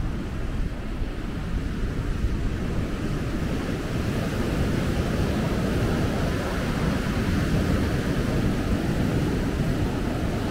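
Ocean surf breaking and washing on the beach, with wind buffeting the microphone; the rush swells a little in the middle.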